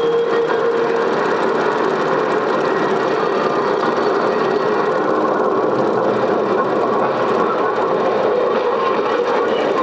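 Film projector running: a steady, rapid mechanical clatter with a constant hum, even in level throughout.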